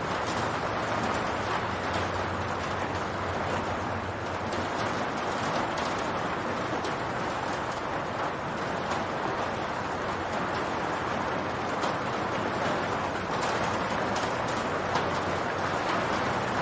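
Steady rain falling on a roof: an even patter with scattered individual drop clicks.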